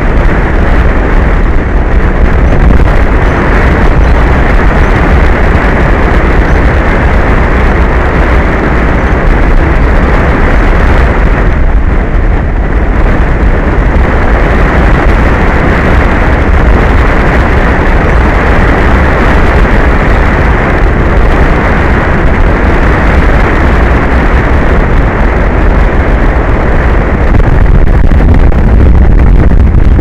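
Strong wind buffeting an exposed microphone: a loud, steady, low rumble under a continuous rush. It eases briefly about twelve seconds in and grows a little louder near the end.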